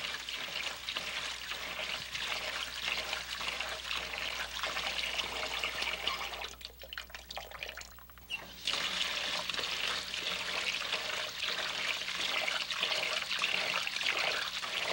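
Water running steadily from a kitchen tap into a sink. It eases off for about two seconds around seven seconds in, with a few light knocks, then runs again.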